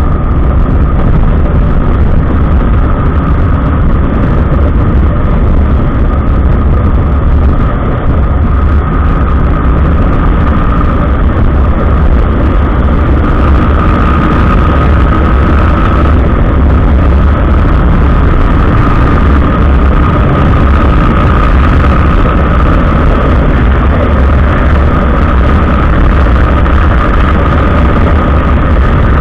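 Kawasaki ER-6n 650 cc parallel-twin motorcycle running on the road, with a loud, steady low rumble of wind and road noise, as picked up by an SJ4000 action camera mounted on the bike.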